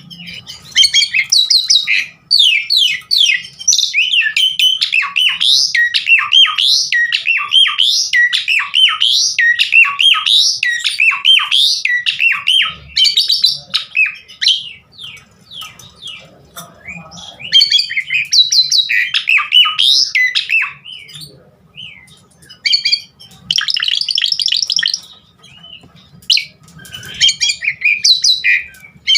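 Pied starling (jalak suren) in full song: long runs of rapid, varied chattering and whistled notes, packed with mixed phrases. It sings in several long bursts, with short breaks around the middle and again later on.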